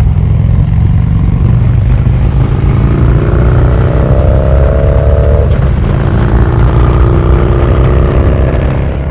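A motor vehicle engine running loud, its pitch rising as it accelerates in one long pull through the middle and again near the end.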